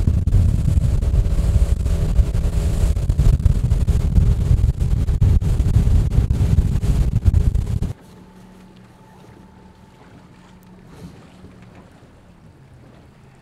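Wind buffeting the microphone over the drone of a boat engine running at speed, with water rushing past the hull. The noise cuts off suddenly about eight seconds in, leaving only a quiet low hum.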